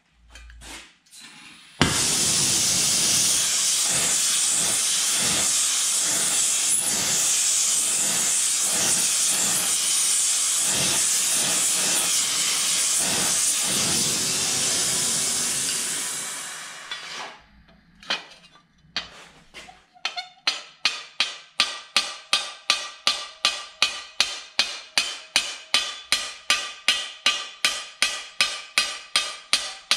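A gas torch hissing steadily for about fifteen seconds while it heats the edge of a steel armour plate, then fading out. After a short pause, a hammer strikes the plate's edge on a stake anvil at a steady pace of just under two blows a second, rolling the edge over for a roped border.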